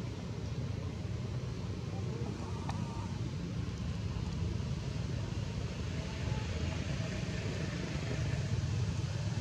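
Steady low outdoor rumble of background noise, with a faint short click a little under three seconds in.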